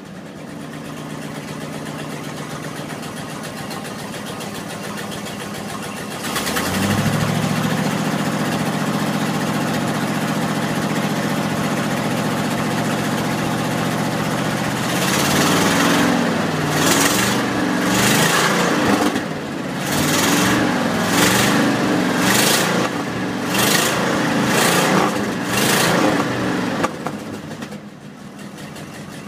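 1986 Ford F-250 engine heard at its tailpipe. It idles, then about six seconds in it rises to a higher steady speed and holds there. From about the middle it is revved in a string of short blips, roughly one a second, then it drops back to idle near the end. The engine is running soon after a cold start following long storage.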